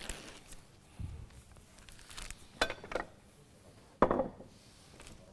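A handful of short knocks and clinks of dishes and utensils handled on a kitchen worktop: a dull thump about a second in, two clinks close together near three seconds, and the loudest knock just after four seconds.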